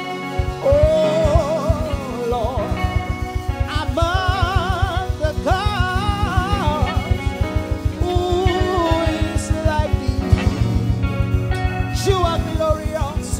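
Live praise-and-worship music: a singer holding long, wavering vibrato notes over a band. A steady, fast low beat comes in right at the start.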